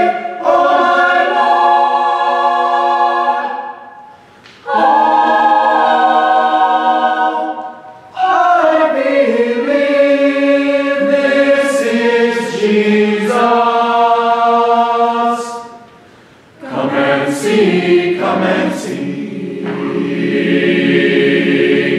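College choir singing a spiritual in full chords, in four phrases with short breaks between them, the last ending on a long held final chord.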